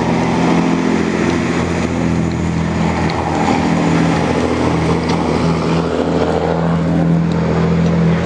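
Electric motor and propeller of a high-wing RC trainer aeroplane droning steadily, its pitch wavering slightly.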